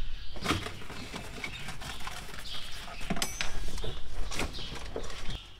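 Rustling and irregular knocking as loose cab rubbish is picked up and handled: paper feed sheets, a plastic bottle and other items. A short ringing clink comes about three seconds in.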